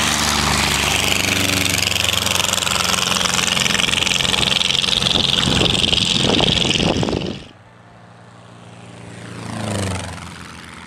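Light aircraft piston engine running loud and close, cut off abruptly about seven and a half seconds in. A small propeller plane then makes a low fly-by, swelling to its loudest near the end and fading as it passes.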